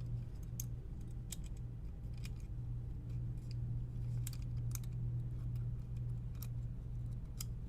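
Scattered small clicks and taps of a PS5 DualSense controller's plastic parts and cable being handled and plugged in, irregular and a few to the second, over a steady low hum.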